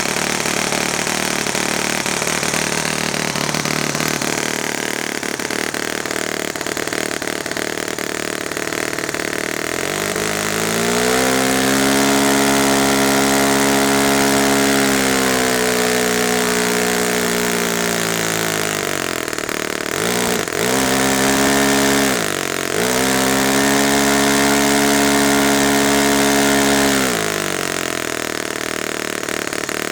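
Saito FA-50 single-cylinder four-stroke glow engine on a test run. It idles roughly, is opened up about ten seconds in to a steady high-revving run, is throttled down and back up sharply twice a little past the middle, then drops back to idle near the end.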